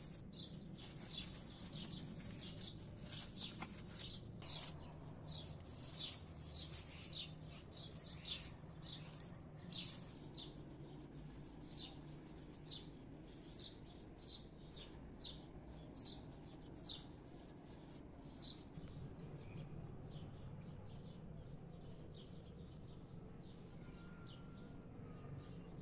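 Small bird chirping over and over, short high chirps about twice a second that thin out near the end, over a low steady hum.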